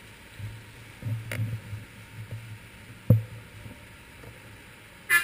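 Low, muffled rumble of street traffic and the bicycle's ride picked up by a handlebar-mounted GoPro, swelling and fading, with a knock about a second in and a sharp knock about three seconds in. A vehicle horn starts honking right at the end.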